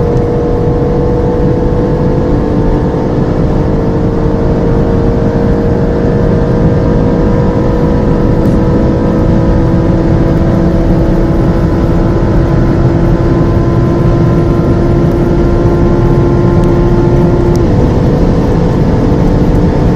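Turbocharged sports car flat out at high speed. The engine note climbs slowly in a high gear, then drops once with an upshift near the end.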